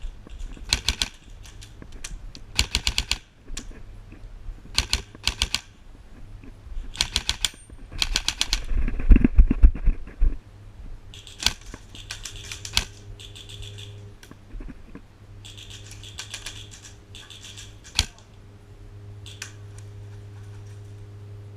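Airsoft guns firing short full-auto bursts, rapid strings of clicking shots that repeat every second or two. About nine seconds in there is a loud low rumble, and after that the bursts thin out over a steady low hum.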